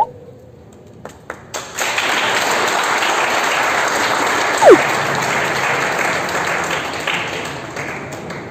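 Audience applauding: a few scattered claps build into steady clapping about a second and a half in, then slowly die down. A brief loud falling tone cuts through near the middle.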